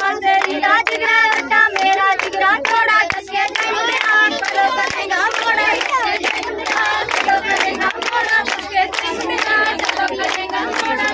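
A group of women and girls singing a Punjabi boli together to steady rhythmic hand clapping, as in giddha.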